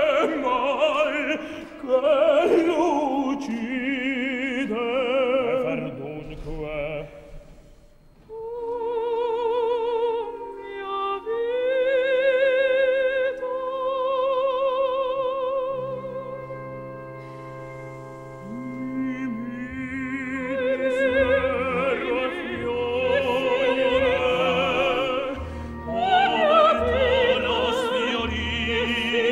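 Operatic singing with orchestra: a tenor's phrase, then a soprano singing anguished lines, with long notes held in wide vibrato over the orchestra's low sustained notes.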